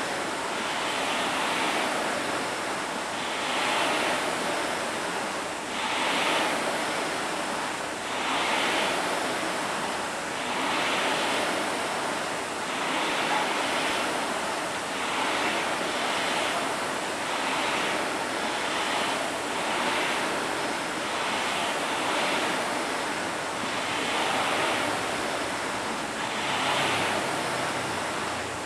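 Several Concept2 indoor rowing machines in use, their air-resistance flywheel fans whooshing. The whoosh swells with each drive stroke, about one surge every two to two and a half seconds.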